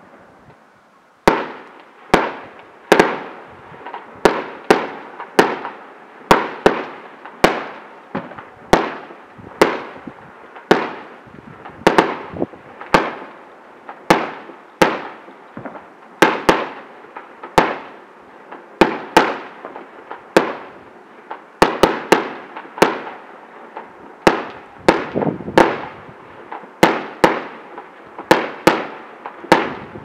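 Fireworks display: aerial shells bursting in a rapid, uneven string of sharp bangs, about one or two a second, each trailing off in an echo. The bangs begin about a second in, after a brief lull.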